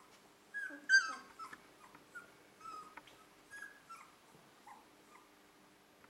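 German shorthaired pointer puppies whimpering: a string of short, high-pitched squeaks and whines, the loudest about a second in.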